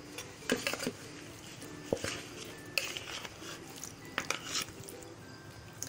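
Cookware clinking: metal tongs knocking against an aluminium pressure cooker as marinated chicken pieces are set in, and a metal spoon scraping a plastic bowl, a handful of separate clinks and knocks spread over several seconds.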